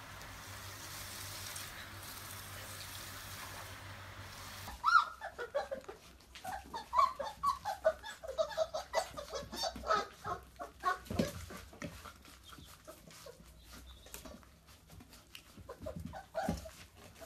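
Chocolate Labrador puppies squeaking and whining in many short, high yelps while they eat from stainless steel bowls, with sharp clicks and clinks among them. The squeaks start suddenly a few seconds in and thin out after the first several seconds, following a steady background hiss.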